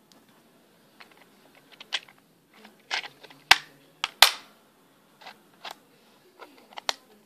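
Plastic clicks and knocks from the parts of a Dye Rotor paintball loader being handled and fitted back into its shell. A handful of separate sharp clicks, spread out, the loudest just after four seconds in.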